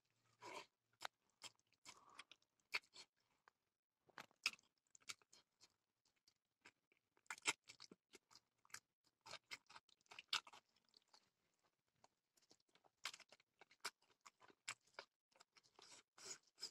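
Faint mouth sounds of a person chewing a handful of rice and pork: soft wet smacks and clicks at irregular intervals, with short pauses between.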